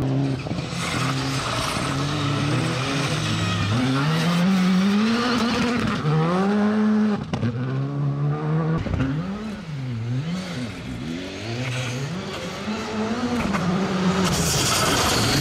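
Skoda Fabia R5 rally car's turbocharged four-cylinder engine revving hard and dropping again and again as it changes gear and lifts on a gravel stage. Gravel and tyre hiss grow loud near the end as the car comes close.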